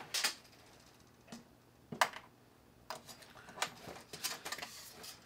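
Tape measure being pulled out and laid across the inside of an empty plastic toolbox: a handful of sharp, separate clicks and taps.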